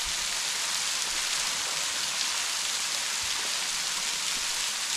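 Thin waterfall dropping off a sandstone overhang and splashing onto the ground below: a steady, even hiss of falling water.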